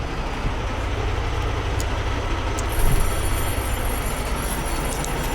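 Gusty wind buffeting the microphone, a steady rushing noise that swells briefly about three seconds in.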